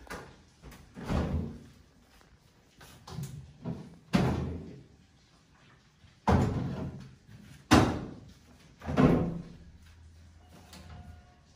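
Knocks and thuds of kitchen handling: a small refrigerator door opened and shut, and plastic water jugs moved and set down on the counter. The loudest knock comes about four seconds in, and three more follow between about six and nine seconds.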